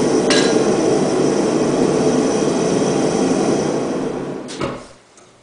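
Gas forge burner running with a steady roar, which cuts off abruptly near the end with a click.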